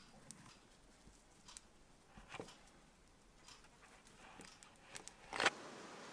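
Scattered light taps and knocks from parts of an old manual coffee grinder being handled, with one louder knock near the end, after which a faint steady hiss sets in.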